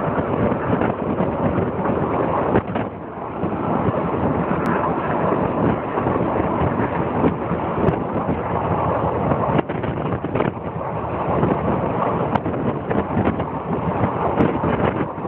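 Train running along the track, a steady rumble with irregular wheel-on-rail knocks, with wind buffeting the microphone.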